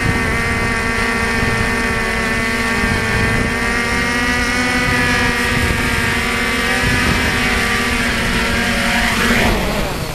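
FPV quadcopter's motors and propellers whining steadily as it comes in to land, heard from the drone's own camera. Near the end the pitch briefly rises, then the motors spin down and the sound fades as it sets down on the asphalt.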